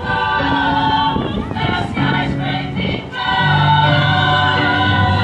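A choir singing a song in held chords, the notes changing every second or so.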